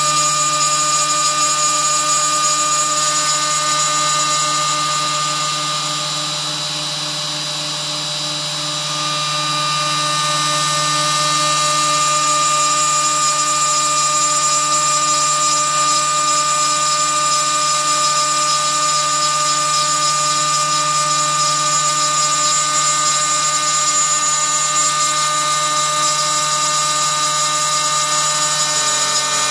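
CNC router spindle running with a steady whine while a single-flute 1/4-inch diamond-coated carbide end mill cuts MIC6 cast aluminum plate dry, 1 mm deep at a slow 45 inches per minute. The sound drops briefly about six seconds in and comes back up about three seconds later.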